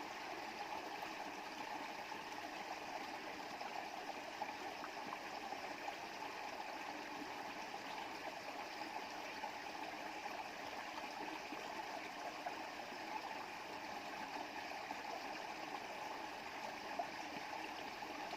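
Stream water running over stones: a steady, even rush with no breaks.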